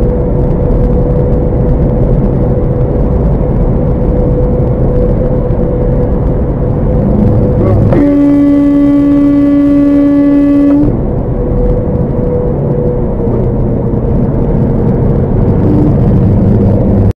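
Steady highway road and engine noise inside a moving vehicle, with a horn sounded once, about eight seconds in, and held for about three seconds on one steady pitch. The horn is a warning to a semi-trailer truck moving over into the lane ahead.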